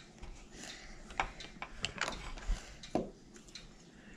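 Irregular light clicks and taps of Play-doh toys and tools being handled as the dough is worked, several a second.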